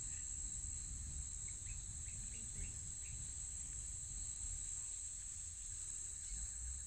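Steady high-pitched insect drone, with a faint low rumble underneath and a few faint short chirps in the first half.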